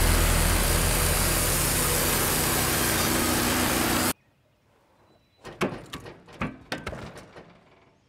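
Wood-Mizer LX150 portable sawmill's engine running steadily, stopping abruptly about four seconds in. After a short silence, a few footsteps crunch on gravel.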